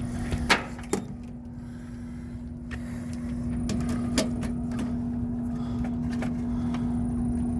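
A steady low machine hum with a rumbling background, broken by a few sharp clicks and taps as tools and panels are handled.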